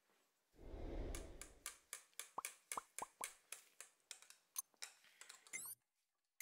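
Wire balloon whisk beating yogurt and sugar in a glass bowl: quick clicks of the wires against the glass, about four or five a second, with wet plopping from the thick yogurt.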